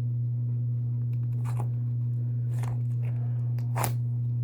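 A few faint crinkly, squeaky sounds from a squishy foam toy ball being squeezed to push the trapped air out of it, about one and a half to four seconds in, over a steady low hum.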